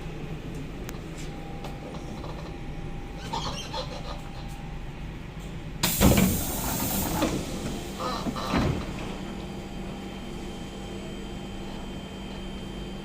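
Inside a Siemens C651 train carriage: steady running noise, then about six seconds in a sudden loud hiss of released air with a thump, lasting about a second and a half, and a second shorter clunk and hiss about two seconds later, from the train's pneumatic brake or door gear.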